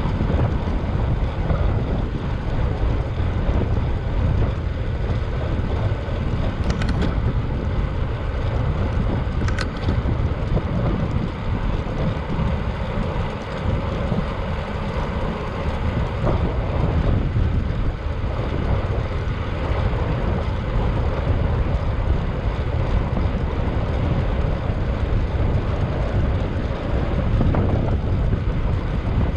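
Wind rushing over the microphone of a moving bicycle, a steady low rumble. Two faint, brief high sounds come through about 7 and 10 seconds in.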